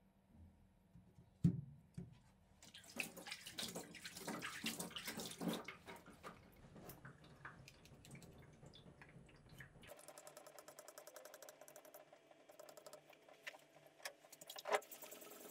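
A whetstone knocks down into its holder over a sink, then water splashes on it for a few seconds. A faint hum with rapid fine ticking follows near the end.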